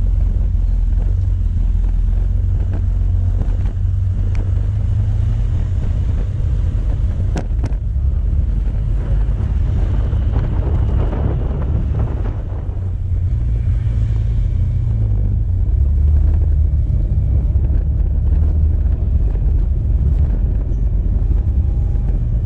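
Steady wind rumble on the microphone of a moving motorcycle, with motorcycle engine and road noise underneath.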